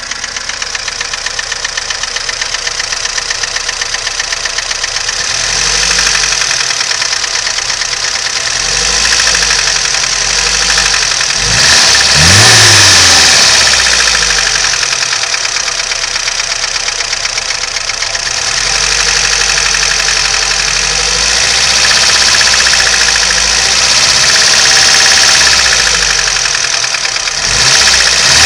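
VAZ-2101 (Zhiguli) inline-four engine running with a knock, its revs raised and let fall several times, with one sharp blip about twelve seconds in. The owner cannot tell what is causing the knock.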